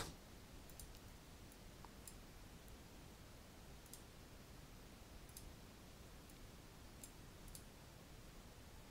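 Faint, irregular clicks of a computer mouse's left button, about a dozen, over near-silent room tone.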